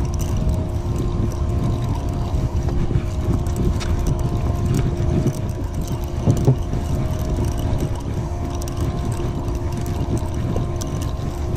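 Boat engine running steadily, a low rumble with a constant hum over it, and a brief louder knock about six seconds in.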